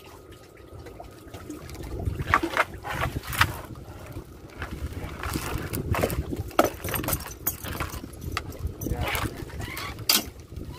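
Water splashing and dripping in irregular bursts around a small fishing boat, over a low rumble.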